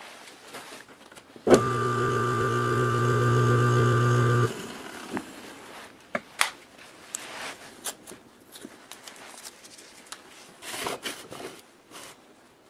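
Restored old electric motor switched on about a second and a half in, running with a steady hum for about three seconds, then switched off and winding down. A few light clicks and knocks of handling follow.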